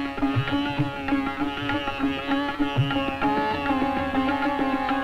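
Sitar improvising a raga in quick plucked runs over a steady drone note, with low tabla strokes underneath.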